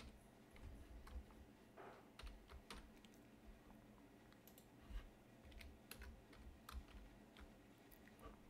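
Faint computer keyboard typing: scattered single keystrokes with irregular pauses between them, over a faint steady low hum.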